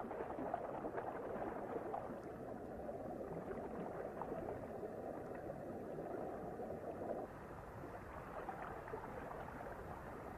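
Underwater water ambience: a steady low water noise that drops suddenly in level about seven seconds in.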